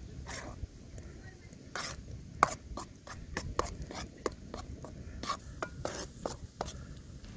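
Metal ladle scraping and tapping against a steel wok while stirring thick caramelised sugar syrup: irregular clicks and scrapes, a few each second.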